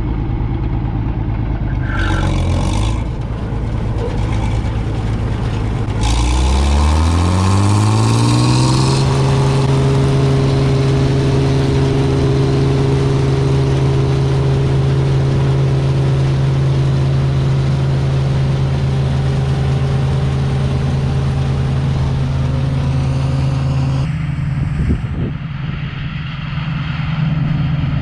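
Claas Dominator 85 combine harvester's engine running at low revs, then rising in pitch about six seconds in as it is throttled up to working speed, and running steadily at full revs. Near the end the tone shifts slightly higher and the background changes.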